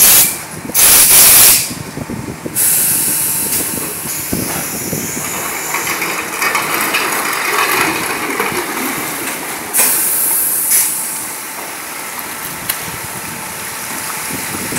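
Water splashing and rushing around a helicopter underwater escape training module as it is capsized and rolled back upright in a pool, with two loud bursts of rushing water in the first two seconds and a steady hiss after.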